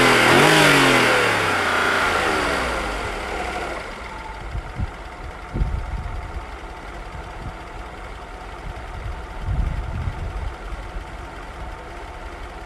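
Lancia Thema 8.32's Ferrari 328-derived V8, just started, revving up and down a couple of times, then settling to a steady idle after about four seconds. A few dull thumps are heard over the idle.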